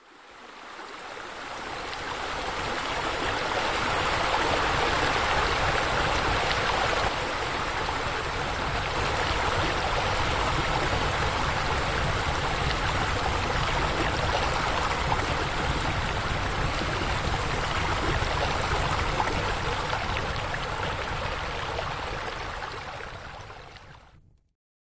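Steady sound of running, splashing water from pool fountains and spillways. It fades in over the first few seconds and fades out near the end.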